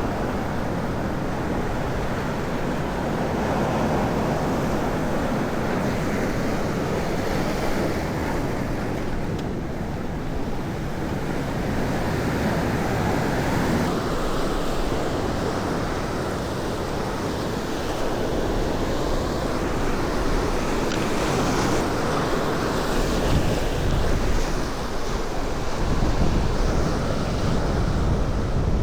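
Sea surf washing against the shore, with wind buffeting the microphone, a little stronger near the end.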